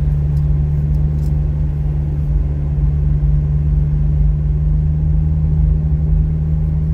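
McLaren Artura's twin-turbo V6 hybrid powertrain running at a steady, even engine speed while the car drives slowly: a constant low hum with rumble beneath.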